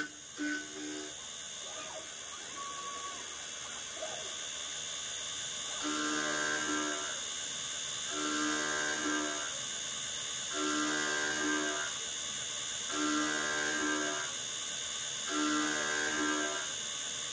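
CNC lathe live-tooling spindle running with a steady high whine and coolant spray. From about six seconds in, an end mill cutting the bar end gives a pitched cutting tone lasting about a second, repeating about every two seconds.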